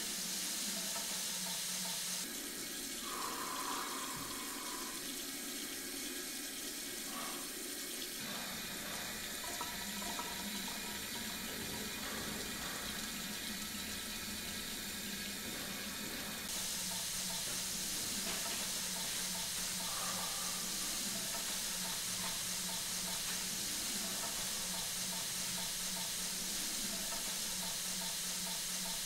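Tap water running steadily into a washbasin. The sound shifts abruptly a few times.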